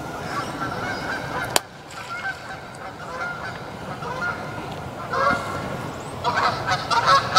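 Geese honking repeatedly, the calls coming thicker near the end. There is a single sharp click about a second and a half in.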